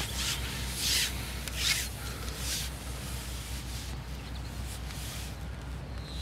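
Fishing pole being pushed out over the water, its length sliding and rubbing in a series of short swishes, roughly one every half second to second, that fade after about three seconds.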